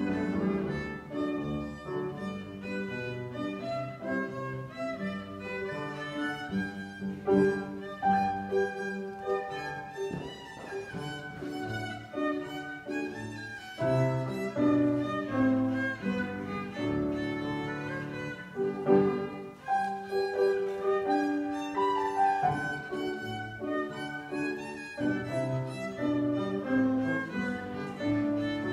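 Violin playing a classical melody of bowed notes, with grand piano accompaniment underneath.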